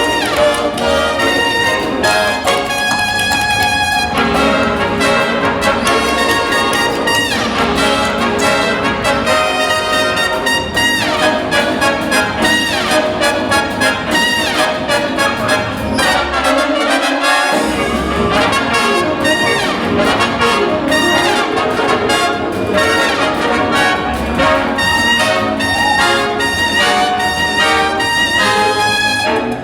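Jazz orchestra playing an instrumental passage, with trumpets and trombones leading and a few falling glides in pitch.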